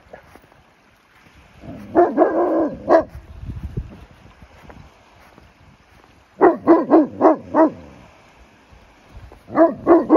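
Dog barking in three bursts: a longer, drawn-out bark about two seconds in, then a quick run of five barks, and four more near the end.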